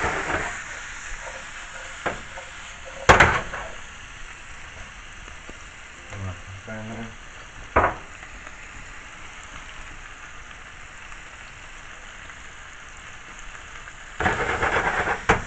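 Saltfish, onion and tomato frying in a non-stick pan with a steady sizzle while the food is stirred. There are louder bursts of sizzling and scraping near the start, about three seconds in and near the end, and a sharp knock about eight seconds in.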